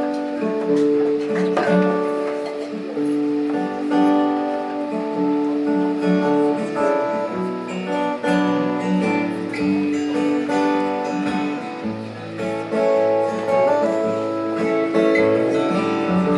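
Acoustic guitar playing a song's intro: picked and strummed chords with a melody on top.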